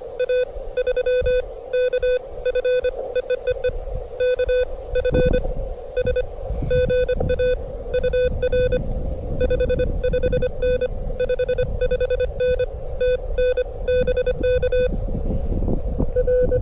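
Ham radio transceiver's Morse code (CW) tone, a single steady beep keyed on and off in fast dots and dashes, at about 25 words per minute. Wind rumbles on the microphone underneath.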